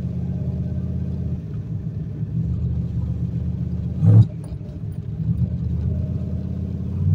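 Turbocharged Ford 351 Windsor small-block V8 of a Fox-body Mustang heard from inside the cabin while driving: a steady low engine drone. About four seconds in there is a brief loud thump, and the engine note dips for about a second afterward before coming back.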